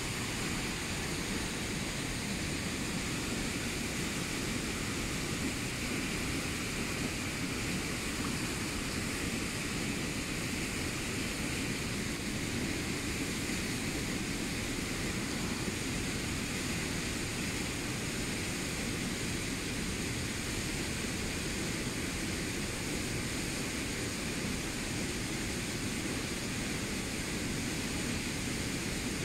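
Fast-flowing shallow river rushing steadily over rocks: an even, unbroken noise of running water.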